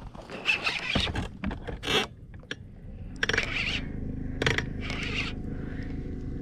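Electric trolling motor humming steadily from about three seconds in. Several brief scraping handling noises from the rod and reel are heard over it.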